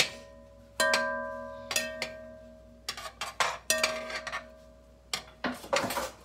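A spoon knocking and scraping against a cooking pot while stirring butter. Several of the knocks set the pot ringing, and each ring fades over about a second. A quicker run of knocks comes near the end.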